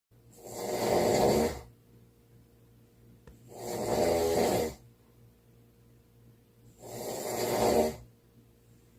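Snoring: three snores about three seconds apart, each growing louder over about a second and then stopping abruptly.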